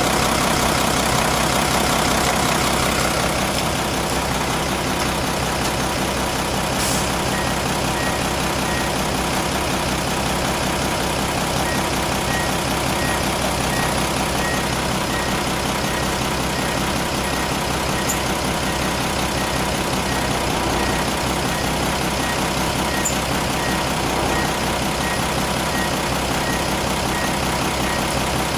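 Nissan FE6 six-cylinder diesel engine of a Metro Rider bus idling steadily. A faint short beep repeats about twice a second from about eight seconds in.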